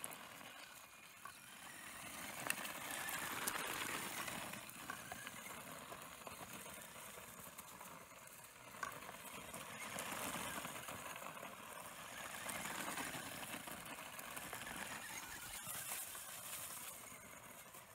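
RC car driving over gravel and dry leaves: tyres crunching and rattling on the stones, with scattered clicks. The sound swells and fades several times as the car runs closer and farther.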